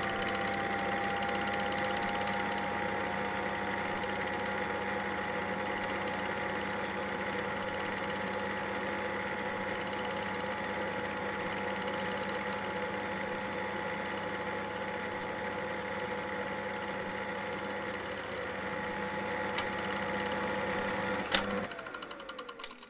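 A small mechanism whirring steadily, its pitch rising slightly at first as it comes up to speed. Near the end there is a sharp click, and the whir winds down, falling in pitch until it stops.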